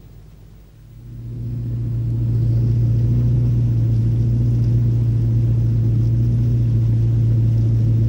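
Boat engine running at a steady pace, a low even drone that swells in about a second in and then holds steady.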